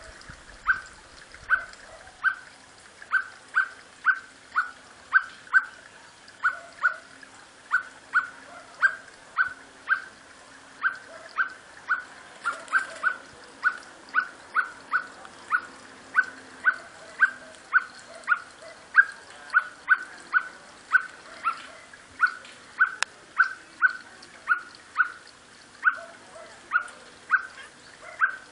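Common blackbird giving a steady run of short, sharp call notes, about two a second, without a break.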